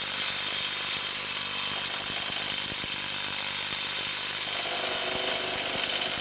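Cordless impact gun hammering steadily on the forcing screw of a three-jaw puller, a high-pitched rattle that slowly draws the crank pulley off the crankshaft of a GM 3.5L LX5 V6.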